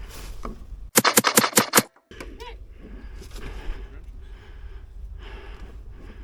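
Airsoft electric rifle firing a quick string of about six shots, roughly six a second, about a second in.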